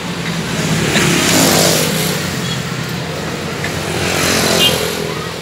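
Road traffic passing close by: motor vehicles go past, swelling loudest about a second and a half in and again shortly before the end, over a steady engine hum.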